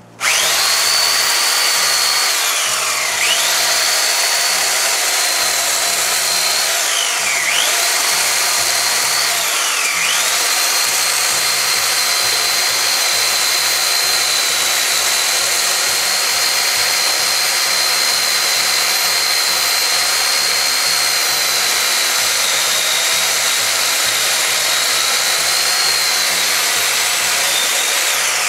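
A Toshiba corded electric chainsaw starts up and cuts through bushes and woody stems with a high motor whine. The pitch drops three times in the first ten seconds as the chain bites into the wood and the motor slows, then recovers. It then runs steadily until it is switched off near the end, its pitch falling as it winds down.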